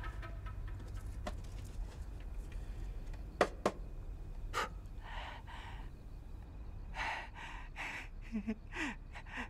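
A few small clicks and knocks as a small wooden box is handled, then breathy exhalations and a short, breathy laugh near the end, over a low steady hum.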